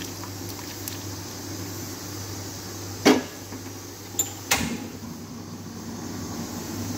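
Mutton and tomato broth cooking down in an aluminium karahi over a steady low hum, with two sharp knocks about a second and a half apart, around three and four and a half seconds in.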